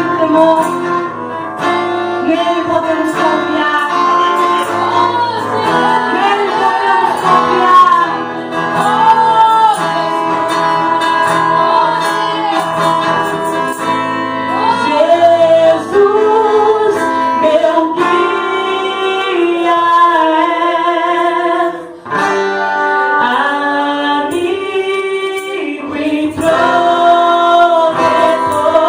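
Gospel worship song: a woman singing with guitar accompaniment.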